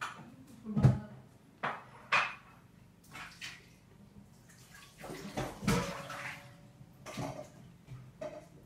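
A child drinking milk straight from a carton: a series of separate gulps and slurps with liquid moving in the carton, the loudest about a second in and a longer run of them about halfway through.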